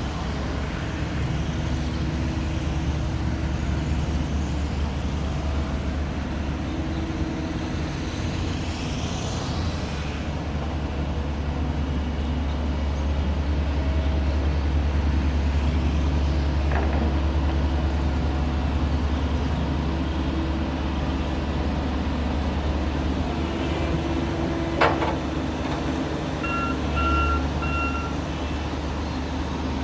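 Diesel road-building machinery, an excavator and a Sakai SV525TF vibratory roller, running steadily with a deep low rumble. One sharp clank comes a few seconds before the end. A reversing alarm then starts beeping in an even, repeating pattern.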